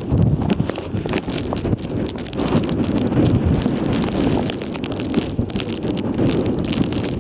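Wind buffeting the camera microphone in gusts, a loud, uneven rumble.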